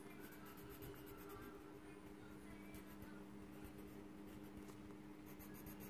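Faint scratching of a coloured pencil shading on paper, over a low steady hum.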